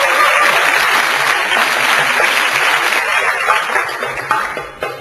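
Audience applauding, the applause thinning out in the last second into a few scattered claps.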